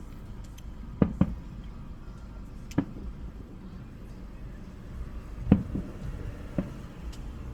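Fireworks bursting: about six sharp bangs over a low steady rumble. Two come close together about a second in, one follows near three seconds, and three more come between five and a half and seven seconds.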